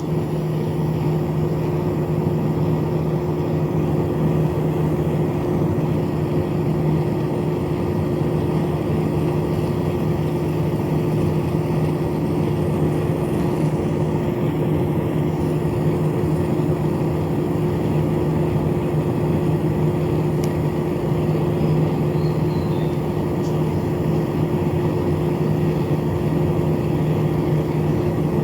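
Small electric fan motor running steadily, a constant hum over rushing air.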